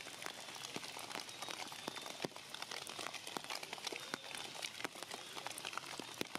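Rain falling on forest leaves: a steady hiss with many irregular, sharp drop hits.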